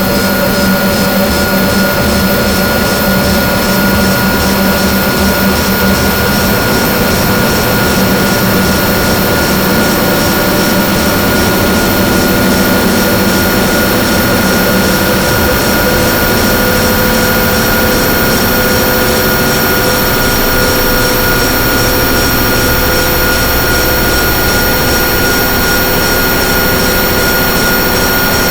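Harsh-noise drone from a DIY synthesizer run through distortion pedals: a loud, unbroken wall of distorted noise with steady high tones held over a rumbling low end. A low buzz in it weakens about halfway through.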